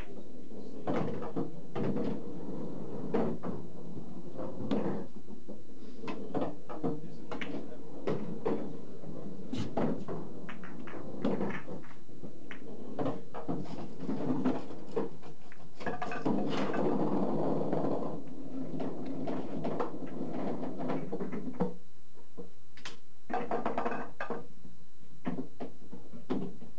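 Pool balls clacking on a bar-size pool table: sharp ball-on-ball hits and knocks, then a longer run of balls rolling and clattering together about two-thirds through as they are gathered and racked in the triangle.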